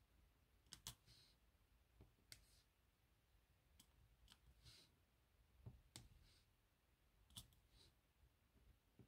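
Faint clicks and taps of a diamond painting pen picking up resin drills and pressing them onto the sticky canvas, single or paired, about one or two every second.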